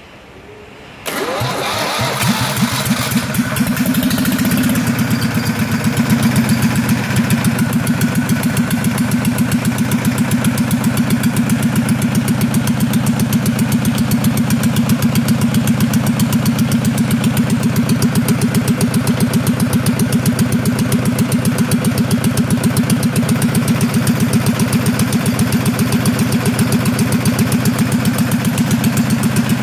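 Bukh DV24 two-cylinder marine diesel engine starting about a second in, picking up speed over the next couple of seconds, then running steadily with an even, rapid firing beat.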